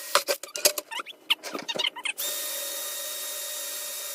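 Power drill boring through a plastic bucket: for about two seconds a rapid, irregular string of sharp knocks and squeals as the bit grabs and breaks through the plastic, then the drill spinning freely with a steady whir.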